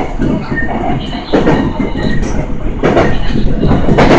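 Kintetsu electric commuter train running on the track, a steady rumble with a few knocks from the wheels over the rail.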